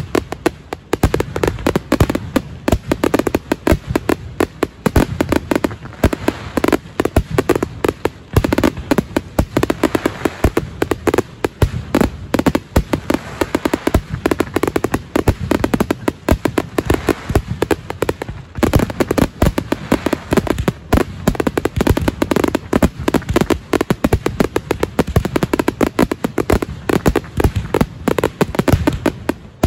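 Portuguese festival fireworks finale: a dense, continuous barrage of loud bangs, many reports a second, with a brief let-up about eighteen seconds in.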